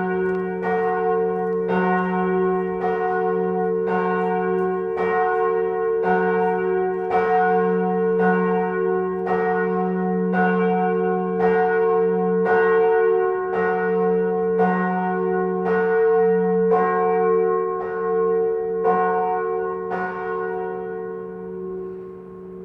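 Church bells ringing, with strikes about twice a second over lower bells' steady hum. Near the end the strikes stop and the ringing fades away.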